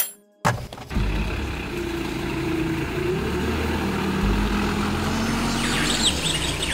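Hyundai Starex van driving off, its engine running steadily, starting suddenly about half a second in. A few high chirps sound near the end.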